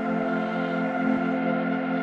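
Ambient electronic background music with held chords.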